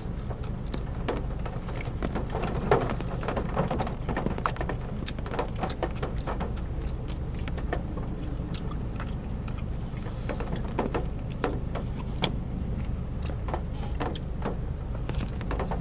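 Close-up chewing and crunching of a breaded spicy chicken sandwich: many small crisp crackles and clicks, over a steady low hum of the car's cabin.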